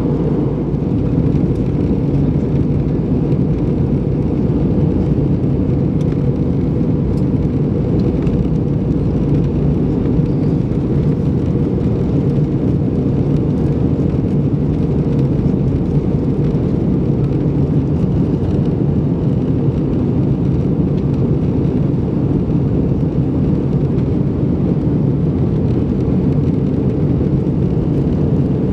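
Steady low drone of an Airbus A320's engines and rushing air, heard inside the passenger cabin on the approach, with a faint steady hum riding on top.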